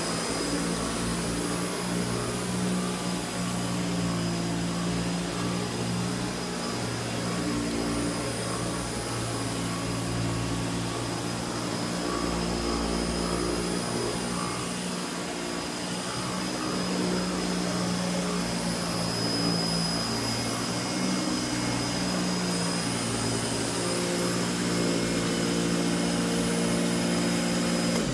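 Vintage Eureka Rotomatic Powerteam canister vacuum running with its power nozzle being pushed over carpet: a steady motor hum with a thin high whine.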